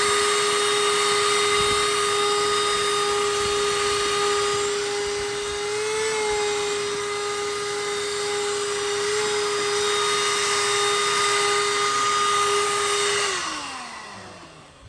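Small shop vac running with a steady high whine and rushing air, then switched off about a second and a half before the end, its whine sliding down in pitch as the motor spins down.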